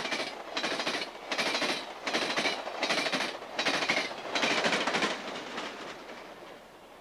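Amtrak San Diegan passenger train of Amfleet coaches with a trailing F40PH locomotive passing close at speed: a rush of wheel and air noise with a rhythmic clatter of wheels on the rails, about three beats every two seconds. The clatter fades away over the last couple of seconds as the train moves off.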